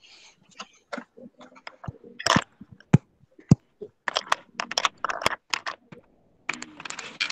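Irregular clicks, taps and knocks, one sharper and deeper knock about halfway, with a brief rustling hiss near the end.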